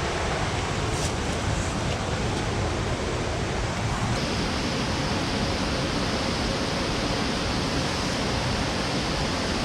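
Steady rush of fast-flowing river water, an even roar with no breaks.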